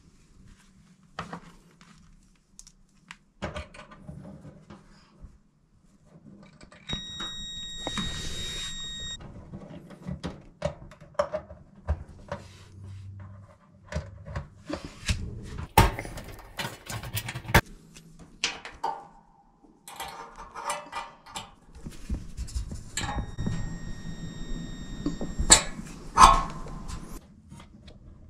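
Hands working on a clothes dryer's cabinet and parts: a run of clicks, knocks and rattles. Twice a steady high whine lasts a couple of seconds, the second time near the end.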